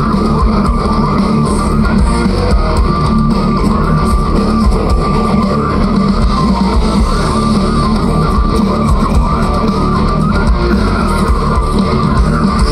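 Live metal band playing loud: electric guitars over bass and drums, with a held melody line on top, going steadily without a break.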